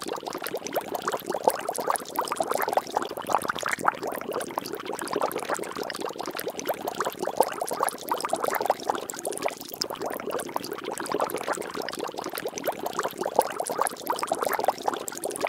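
Water splashing and bubbling without a break: a dense, irregular patter of many small plops and drops at an even level.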